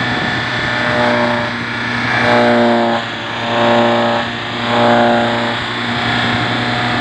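Engine-driven straw and hay chopping machine running steadily while straw is fed into it, its sound swelling three times, between about two and five and a half seconds in.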